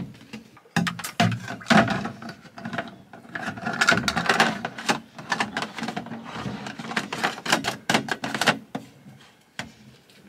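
Irregular clattering knocks, clicks and scrapes of a plastic water jerry can being handled and set in place, and its screw cap with the pump hose through it being fitted. The clatter dies down near the end.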